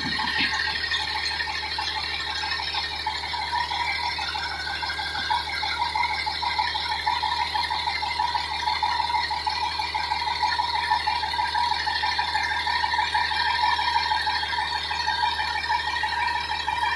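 Fire engine idling, a steady low engine hum with a continuous rattle over it.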